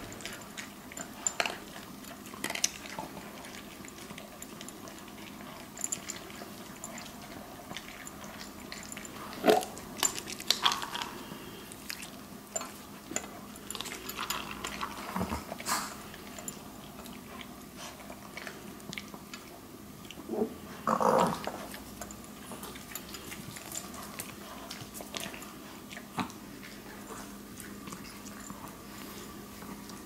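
Maltese dogs eating dry kibble from clear plastic bowls: irregular crunching and small clicks of kibble and teeth against the bowls, with a few louder knocks.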